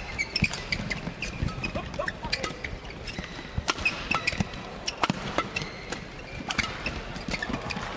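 Badminton rally: rackets striking the shuttlecock again and again at irregular intervals, with players' shoes squeaking on the court and a low steady hum of the arena underneath.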